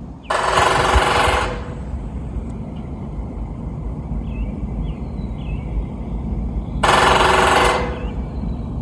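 Woodpecker drumming its beak on a metal fence: two rapid drum rolls of about a second each, with a metallic ring, one near the start and one about seven seconds in.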